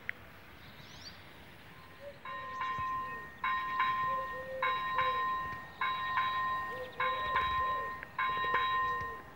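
Electric level-crossing bell (AŽD ZV-01) starts ringing about two seconds in, in groups of rapid strikes repeated about once a second: the warning that the crossing has activated for an approaching train. Before it starts there is only faint background.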